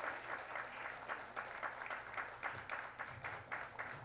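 Audience applauding: many people clapping together, a dense, even run of claps.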